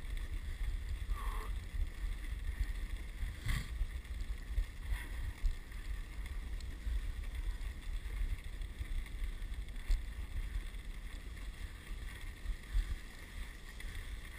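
Wind buffeting the microphone over the steady hiss of a dog sled's runners gliding on snow. There is a short squeak about a second in and a single knock a few seconds in.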